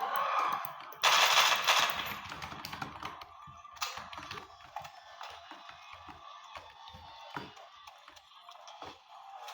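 Keys of an R8 1812 mini keyboard clicking in rapid, uneven typing, with a louder clatter of keystrokes about a second in.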